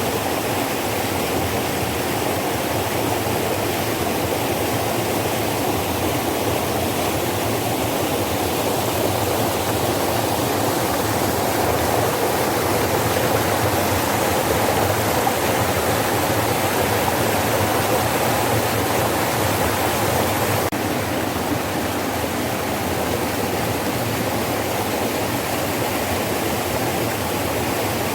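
Mountain valley stream, water rushing steadily, with a slight change in the hiss about two-thirds of the way through.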